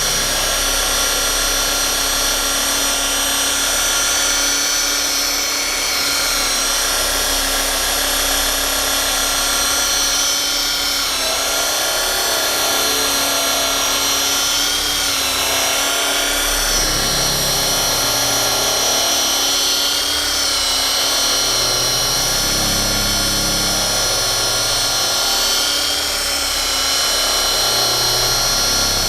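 Rotary polisher running steadily with a high motor whine while cutting compound into old single-stage paint. The pitch wavers slightly in the middle as it is worked across the panel.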